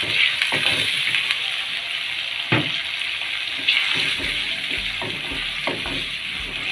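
Chopped tomatoes and masala frying in oil in a karahi, a steady sizzle as the tomato masala cooks down. A wooden spatula stirs and knocks against the pan a few times.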